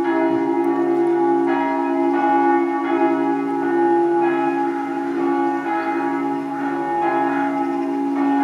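Church bells ringing: a run of pitched strokes at uneven intervals, over the long, overlapping hum of the bells.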